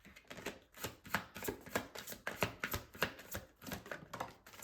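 A deck of tarot cards being shuffled by hand: a quick, uneven run of soft card clicks and slaps, several a second.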